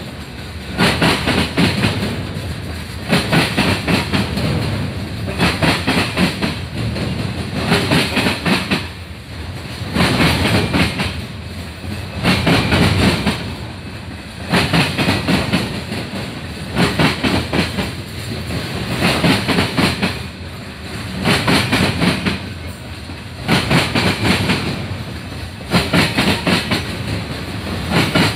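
Freight train of loaded open-top coal cars rolling past close by: a steady rumble with a loud clickety-clack burst each time a pair of car trucks passes, about one every two and a quarter seconds.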